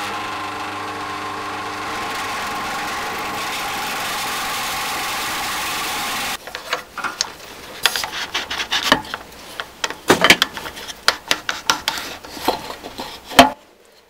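Electric drill running steadily for about six seconds as the bit bores through a wooden guide block into a wooden dowel, cutting a rounded notch, then stopping suddenly. A series of irregular knocks and clatters of wooden pieces being handled follows, the loudest just before the end.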